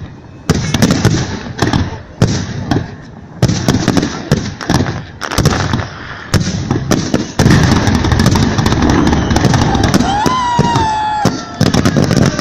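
Fireworks salute: a series of sharp bangs from bursting shells, spaced out at first and then merging into a dense, continuous barrage a little past halfway, with a voice calling out near the end.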